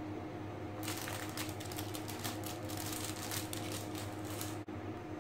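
Thin plastic film crinkling and crackling as it is peeled off a processed cheese slice, a dense run of small crackles starting about a second in and stopping shortly before the end, over a steady low hum.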